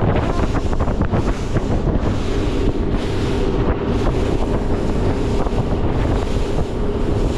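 Wind buffeting the microphone and water rushing past the hull of a Highfield Sport 390 inflatable boat under way. The steady hum of its outboard motor sits underneath and grows a little clearer about two seconds in.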